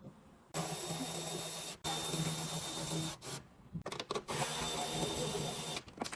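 Power drill-driver whirring in runs of about a second or more with short breaks, backing out screws.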